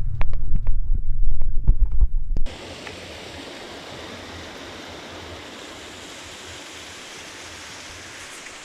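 Drum-heavy music that stops abruptly about two and a half seconds in, leaving the steady rush of a mountain stream.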